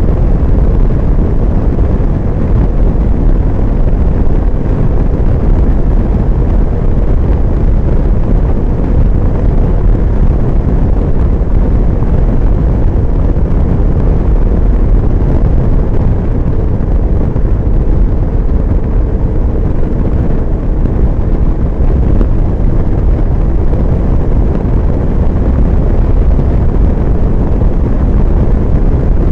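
Steady, loud low rumble of wind buffeting the microphone on a BMW R1150GS motorcycle riding at highway speed, with the bike's running underneath and no single event standing out.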